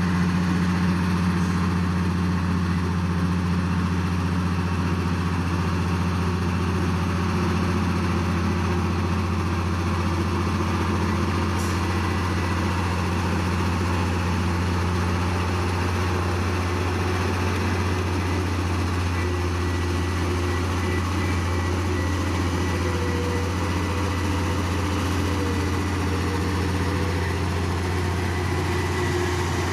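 Heavy diesel engine running steadily, a constant low drone with no change in pitch or level.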